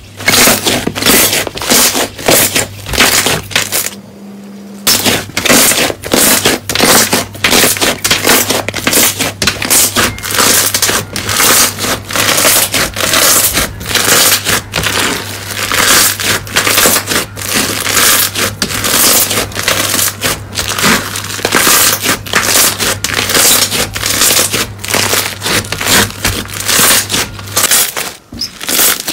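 Hands squeezing and kneading slime, making a loud, dense run of rapid small clicks and pops, with a short lull about four seconds in.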